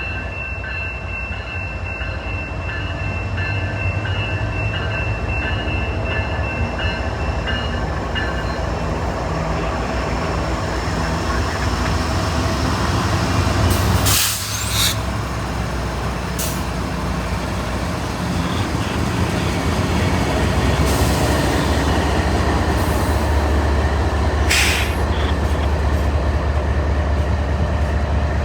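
CN freight train rolling past, a steady low rumble of locomotive and railcars that grows gradually louder. From about halfway, a few brief sharp high-pitched noises break over the rumble.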